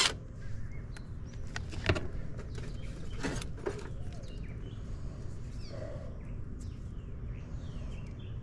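A few light clicks and knocks as the run capacitor is taken out of an AC condenser and handled, over a low steady background hum. Faint bird chirps come in about halfway through.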